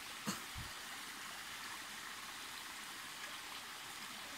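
Steady hiss of a shallow creek flowing over rocks, with one short knock just after the start.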